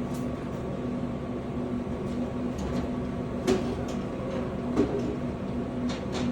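Steady hum of a refrigerated vending machine, with two sharp knocks about three and a half and five seconds in, and a few lighter clicks near the end, as drink cans are handled inside it.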